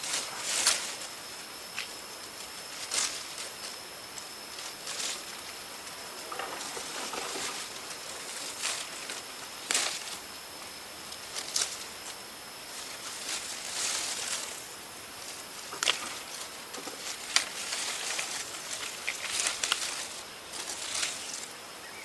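Leaves and twigs rustling and crackling in irregular snaps and longer swishes, over a faint steady high-pitched tone.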